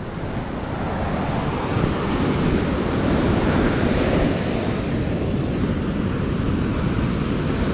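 Ocean surf breaking and washing up the beach, with wind buffeting the microphone. A steady rush of noise, no distinct events.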